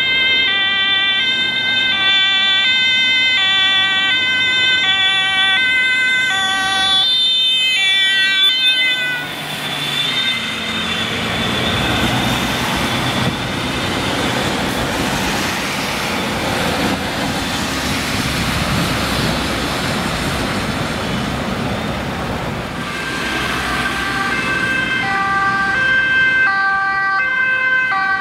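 Dutch ambulance two-tone siren alternating high and low as it passes close, its pitch dropping about nine seconds in as it goes by. Then loud traffic noise, and in the last few seconds a second ambulance's two-tone siren approaching.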